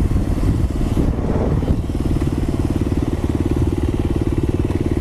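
Dirt bike engine running at low speed with wind rushing over the microphone; about two seconds in the engine settles into an even, steady putter.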